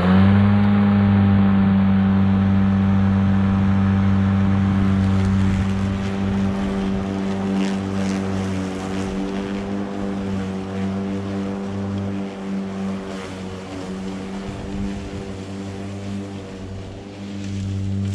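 Stiga Twinclip 950e V 48-volt battery lawnmower's blade motor spinning up when switched on, its hum rising quickly in pitch, then running at a steady pitch. After about five seconds it gets somewhat quieter and wavers.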